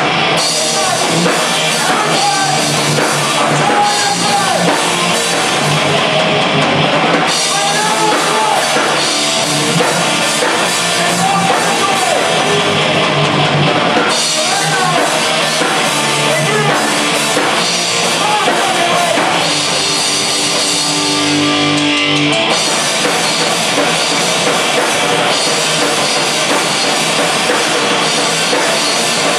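A live rock band playing loud: electric guitars and a drum kit, heard from the room. The high cymbal wash drops out for moments a few times.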